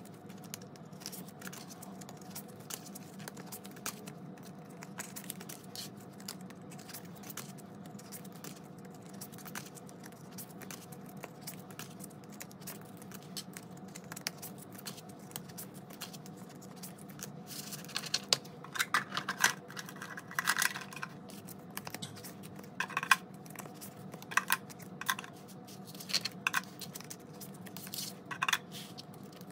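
Paper banknotes rustling and clear plastic cash envelopes crinkling as cash is pulled out of them and laid down, with many light clicks and taps. The handling gets busier and louder about two-thirds of the way through.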